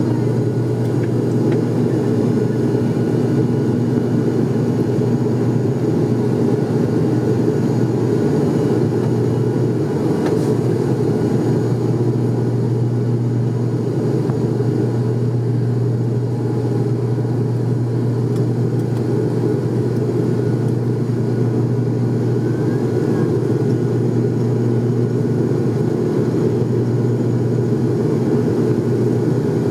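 ATR 72-600 turboprop at climb power heard inside the cabin: its Pratt & Whitney PW127M engines and six-bladed propellers make a steady low drone with a strong deep hum.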